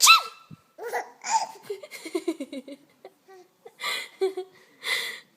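An adult's sneeze right at the start, the loudest sound, then a baby laughing at it in a quick run of short chuckles, with two breathy bursts of laughter near the end.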